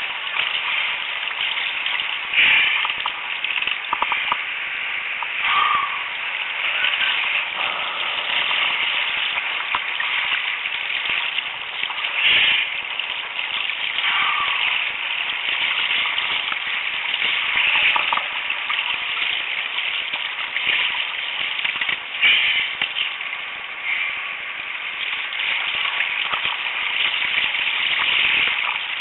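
Steady rush of wind and surf on a helmet-mounted camera's microphone in a strong cross wind, with louder splashy surges every few seconds.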